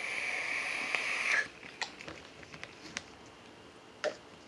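Long draw on a vape: a steady airy hiss with a whistling edge that grows louder and cuts off about a second and a half in. Then a few faint clicks and a swallow as beer is sipped from a glass.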